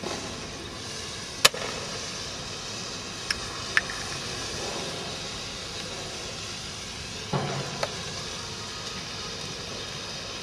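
Hand-held flares burning with a steady hiss. A few sharp clicks are scattered through, the loudest about a second and a half in, with a duller knock a little past the middle.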